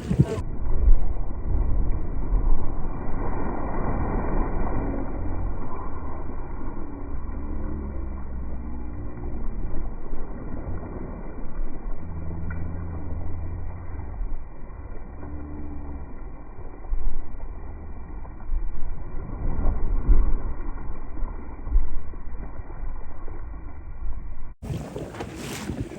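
Tour boat's engine rumbling, with wind buffeting the microphone. For most of the stretch the sound is dull and muffled, with no high treble, and a few brief steady hums come and go. The full, brighter sound returns shortly before the end.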